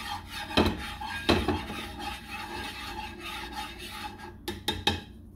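Slotted plastic spatula scraping and rubbing around the bottom of a nonstick frying pan, spreading a thin film of oil, with two louder knocks against the pan early on. A quick run of sharp clicks comes near the end.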